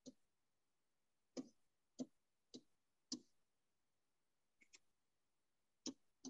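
Faint, irregular taps and clicks of a pen on the surface of an interactive touchscreen display as it writes, about seven in all, amid near silence.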